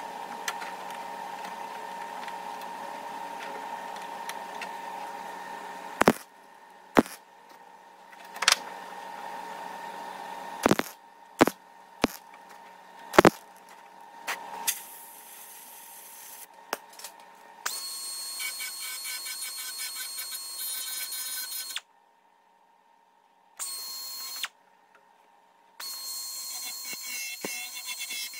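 Power tools at work on car body sheet metal: a steady tool hum, broken by about a dozen sharp metal knocks in the middle, then a brighter, higher-pitched tool sound that cuts off suddenly twice.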